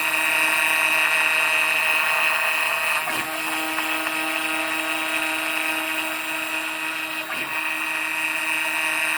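Makita RT0701C trim router mounted as a CNC spindle, running at high speed with a steady high-pitched whine. The tone shifts briefly about three and seven seconds in.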